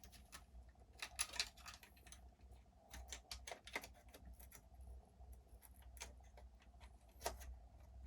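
Faint, scattered clicks and taps of small RC truck parts being handled and fitted by hand, in a few short clusters, with the sharpest click near the end.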